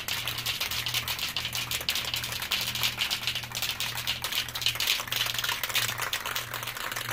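Aerosol spray paint can being shaken hard, the mixing ball inside rattling rapidly and without a break to mix the paint before spraying.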